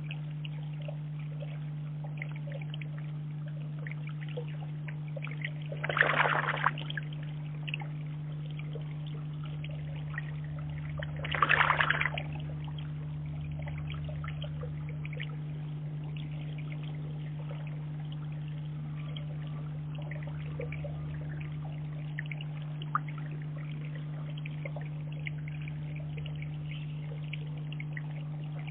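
Wood pigeons splashing in a garden pond: two brief bursts of splashing, about six and twelve seconds in, over faint trickling water and a steady low hum.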